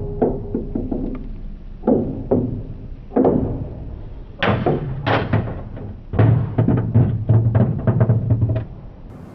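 A small ball bouncing down playground stair treads: several hollow, ringing thunks about a second apart. Near the end comes a quick rattle of smaller knocks as it drops into a plastic toy garage, then it stops.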